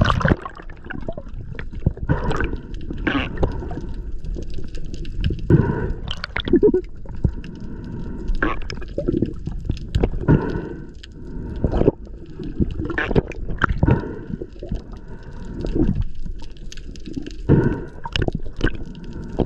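Muffled water gurgling and sloshing around a camera held underwater, in irregular surges every second or two over a low rumble.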